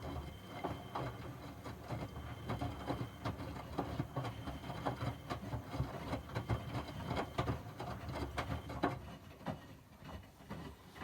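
Miele washing machine running: a low rumble with many irregular clicks and knocks.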